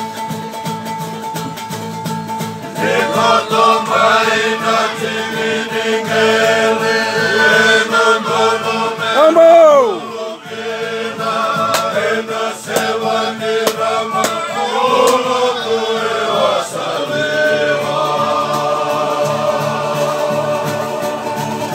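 A group of voices singing together in a chant-like song, growing louder about three seconds in.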